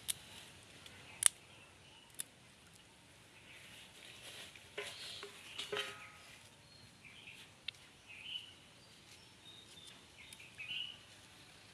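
Birds calling in short chirps through quiet outdoor ambience, with a few sharp clicks.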